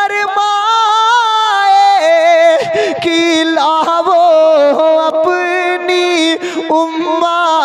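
A man singing an Urdu naat into a microphone, drawing out long wavering notes.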